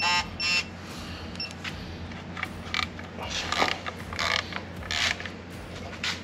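Torque wrench beeping twice near the start as LS front-cover bolts reach their 18 ft-lb setting, followed by a run of short, softer ratcheting sounds as the next bolts are tightened.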